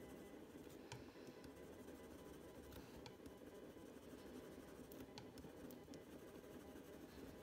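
Faint scratching of a Prismacolor Premier coloured pencil shading on paper, with a few faint ticks, over a low steady room hum.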